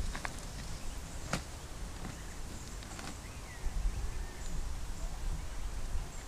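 Riverbank ambience: uneven wind rumble on the microphone that swells about halfway through, a few light clicks and taps, and faint short chirps.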